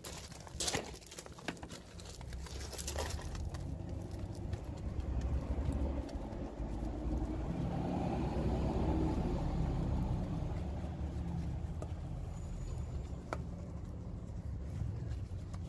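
A detailing brush scrubs a wet alloy wheel's spokes, with a few sharp clicks near the start. Under it a low rumble swells to its loudest about midway through and then eases off.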